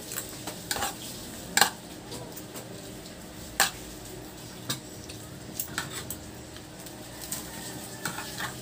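Spoon and fork clinking and scraping against stainless steel divided food trays, as scattered sharp clinks. The loudest come about a second and a half and three and a half seconds in.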